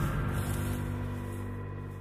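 Background music with sustained low notes, fading out.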